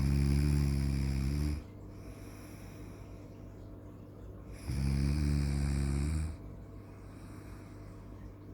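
Snoring: two long, low, rattling snores about five seconds apart, each lasting about a second and a half.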